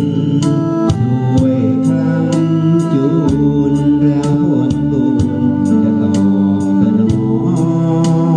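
Instrumental music break led by an electronic organ playing sustained chords over a steady beat of about two strokes a second.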